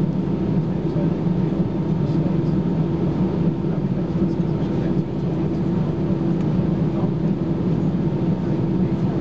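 Airbus A320-214's CFM56-5B engines idling, heard from inside the passenger cabin as a steady low hum with a faint even whine, the aircraft standing before take-off.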